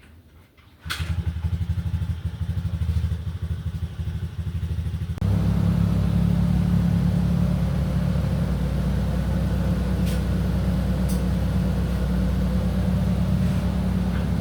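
Renault Megane II engine running after a top overhaul. It starts suddenly about a second in, then becomes louder and steadier about five seconds in.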